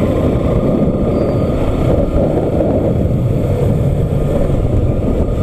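Bajaj Pulsar NS200 motorcycle being ridden at a steady pace: a constant low rumble of wind on the microphone mixed with the single-cylinder engine running.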